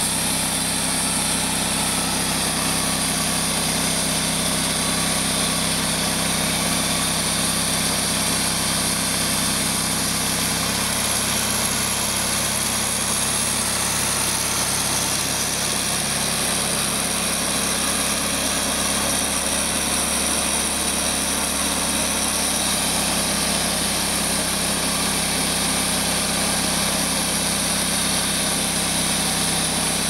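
Wood-Mizer hydraulic portable band sawmill running steadily on its gas engine, an even mechanical drone whose low hum shifts slightly about eleven seconds in.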